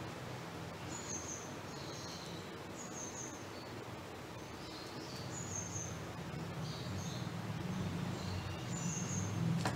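Small birds chirping in short, high calls every second or two, over a steady low background hum that grows a little louder toward the end.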